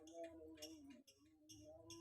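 Lovebird chattering faintly: rapid high clicking chirps, about five a second, over a lower wavering tone.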